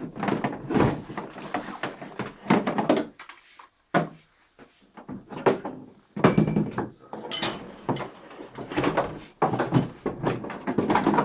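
Repeated knocks, thunks and rattles of a Bosch GSH 16-30 jackhammer being handled, with a short metallic ring about seven seconds in.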